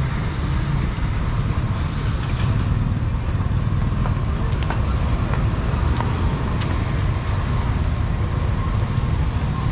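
Street traffic rumbling steadily, with a few faint clicks and knocks scattered through it.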